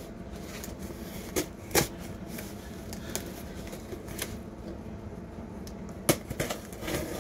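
Cardboard shipping box being handled and its packing tape slit open with a pointed tool: rustling and scratching with scattered light clicks, and two sharper knocks about two seconds in and about six seconds in.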